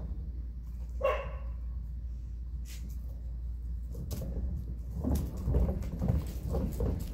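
A dog barks once about a second in. From about five seconds in comes an irregular clatter, the hoverboard's wheels rolling over the wooden deck boards, over a steady low rumble.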